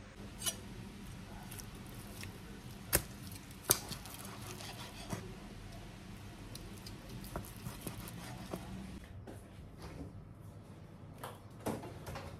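Kitchen handling sounds: a few sharp clicks and taps of a knife and metal tongs working on roast pork belly on a cutting board, over a faint steady hum. Near the end come a few clicks and knocks of a refrigerator door being handled.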